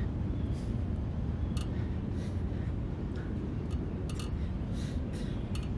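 Steady low outdoor rumble with scattered faint clicks and ticks, and one sharper click near the end.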